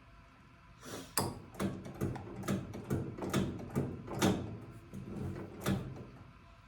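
Metal hand tool clinking and scraping, a dozen or so sharp knocks over about five seconds starting a second in, as a seal is worked loose from the top of a tractor's steering cylinder.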